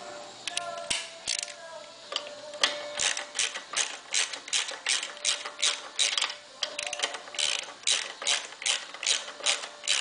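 Hand ratchet wrench clicking in short repeated strokes, about three clicks a second, as the pins on a motorcycle's front brake caliper are tightened. A few scattered clicks come first, then a steady run from about three seconds in.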